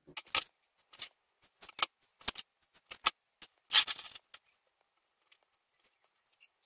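Drafting tools handled on a drawing board: a plastic set square and wooden straightedge being picked up and set in place, giving a string of irregular clicks and knocks with a short scrape about four seconds in. The last two seconds are nearly quiet, with only faint ticks.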